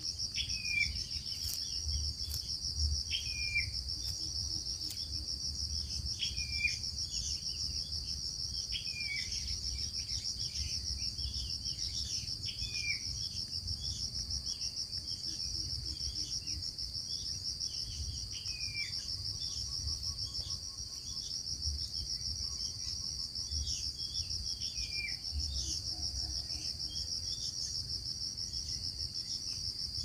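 Steady, high-pitched trilling of insects, with short, downward-hooked bird chirps every second or two that die away about two-thirds of the way through, over a low rumble.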